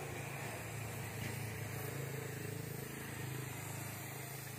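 A steady low mechanical hum, like a motor or engine running, with no sudden sounds; it eases off slightly toward the end.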